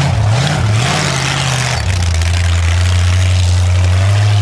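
Lifted four-wheel-drive mud truck's engine revving up and down as it pushes through deep snow, then running at a steady drone after about two seconds. A rushing hiss of the tyres churning snow comes with the revving.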